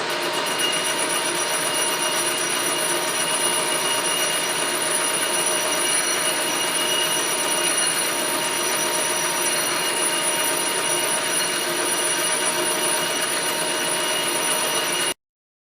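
Metal lathe running while a carbide insert takes a facing cut across a grinder wheel backing plate: steady machine noise with several high, steady whining tones. It cuts off suddenly near the end.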